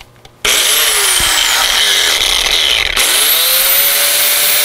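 Angle grinder with an abrasive cut-off wheel cutting into the factory steel tow hook bracket. It starts loud about half a second in, its whine sinking in pitch, then changes abruptly at about 3 s and climbs back up to a steady high whine over a grinding hiss.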